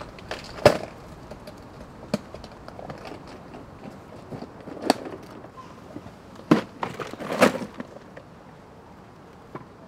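Plastic toolbox being handled, opened and shut: scattered sharp clicks and knocks of its latches, lid and contents. The loudest comes about two-thirds of a second in, and there is a cluster of them near the end.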